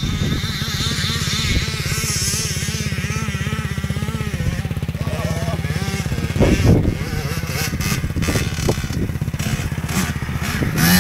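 Off-road motorbike engine running, the revs rising and falling, with a few louder surges about six seconds in and near the end.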